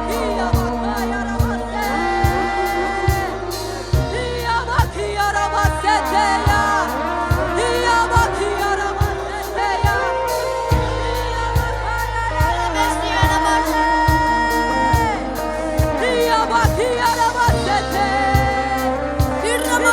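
Gospel worship music with a steady beat and held bass notes, and a voice singing long, wavering notes without clear words.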